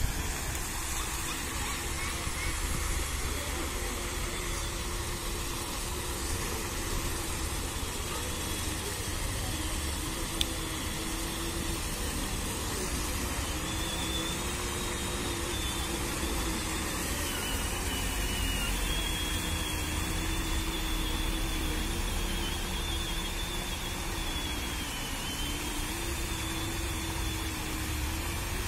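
Fountain jets spraying and splashing into a stone basin: a steady rushing hiss, with a faint wavering whine beneath it and a single click about ten seconds in.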